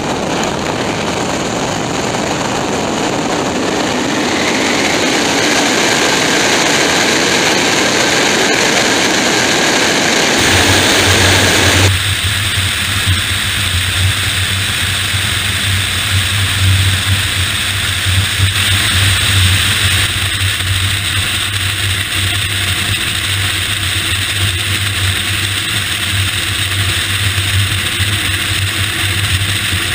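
Large aircraft heard from a camera by its landing gear: rushing airflow and engine noise building as it lifts off the runway, then about eleven seconds in the sound changes abruptly to a steady low drone under airflow hiss in flight.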